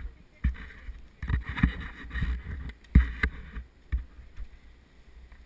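Skis scraping and shuffling on packed snow with poles knocking: a series of irregular knocks and short scrapes that die away about four seconds in.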